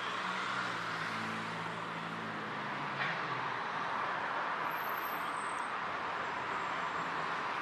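Street traffic ambience: a steady hiss of road noise, with a vehicle engine humming close by for the first three seconds before fading away.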